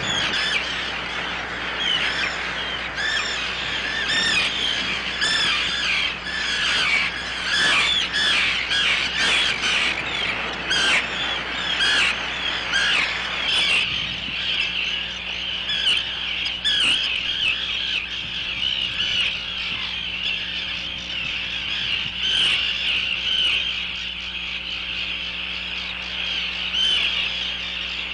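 Tern colony calling: many short calls from many birds overlapping in a continuous chorus, busiest in the first half.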